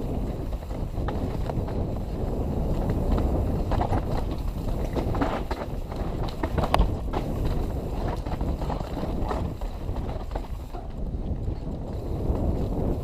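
Mountain bike running down a dirt trail: a steady wind rumble with frequent clicks and rattles from the bike over bumps.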